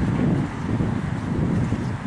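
Wind buffeting the microphone: a rumbling, fluttering low noise.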